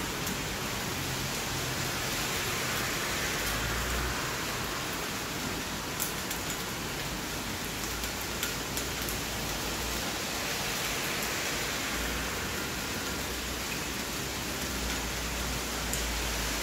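Steady rain falling, an even hiss of many drops, with a few louder single drop hits about six seconds in and again a couple of seconds later.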